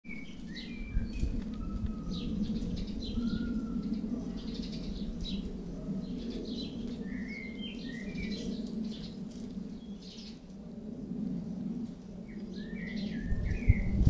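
Small garden songbirds chirping and singing, short high calls and a few whistled notes scattered throughout, over a steady low hum, with a low rumble near the end.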